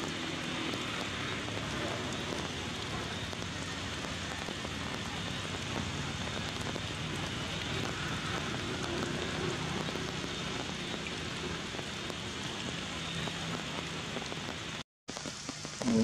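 Steady, even hiss of rain-like noise, with a faint low hum beneath it, cutting out abruptly for a moment near the end.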